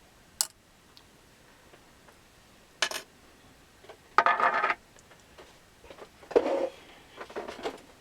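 Small metal parts and tools clinking and clattering as they are handled on a workbench, in about five short bursts; the loudest is a half-second clatter about four seconds in.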